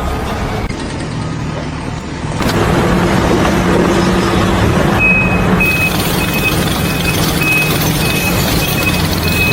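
A heavy vehicle's engine running, with a reversing alarm beeping about twice a second from about halfway through. The sound changes abruptly a few times.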